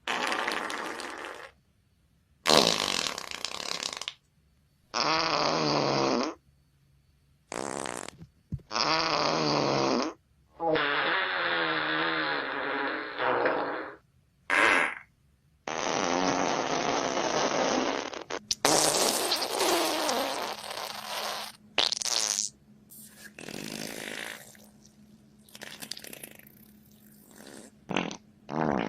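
A string of fart sound effects, one after another with short silences between. Many are wobbling and pitched, some are noisier, and they come closer together in the second half.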